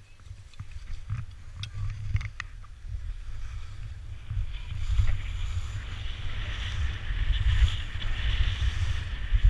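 Wind buffeting an action camera's microphone during a ski descent, with skis hissing and scraping over the snow. A few light clicks come in the first couple of seconds, and the scraping hiss grows louder from about four and a half seconds in.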